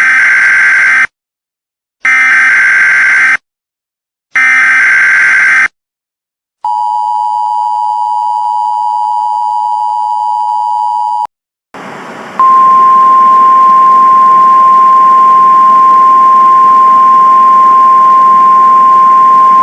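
Emergency Alert System activation for a Snow Squall Warning: three one-second bursts of the warbling SAME header data, then the two-tone attention signal held for about four and a half seconds. After a brief gap comes a hiss of static with a single steady alert tone laid over it.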